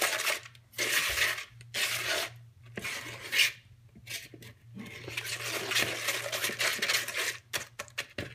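Spatula stirring a thick mayonnaise and brown-sugar mixture in a white mixing bowl, scraping against the bowl in repeated strokes, with one longer stir about five seconds in and quick light taps near the end.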